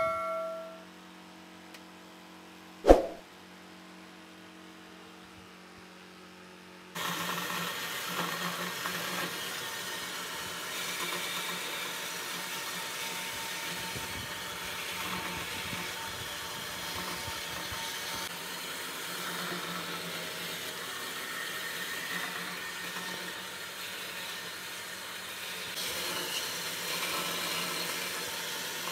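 Band saw running and cutting through a hardwood block, a steady rushing noise over a low hum that starts abruptly about seven seconds in. Before it, a quiet stretch broken by one sharp click about three seconds in.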